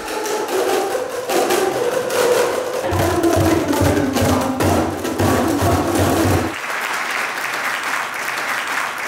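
A large group striking boomwhackers, tuned plastic tubes, in many sharp hits over music with a low drum beat. About six and a half seconds in the playing stops and the crowd applauds.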